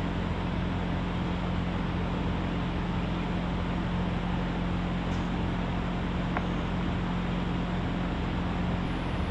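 Steady mechanical hum with a constant low drone, unchanging throughout, with a couple of faint clicks about five and six seconds in.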